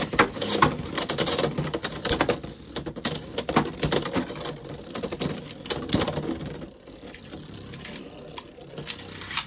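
Two Beyblade X spinning tops battling in a clear plastic stadium, with a fast rattling clatter of collisions and scraping against the plastic floor and walls. About two-thirds of the way through the clatter thins out and gets quieter as the tops slow down in the centre.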